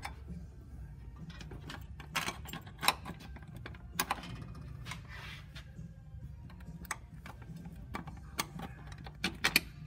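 Scattered sharp metal clicks and clinks as bolts and hand tools are worked against a car's transmission crossmember and mount, several of them close together near the end. Under them runs a steady low hum.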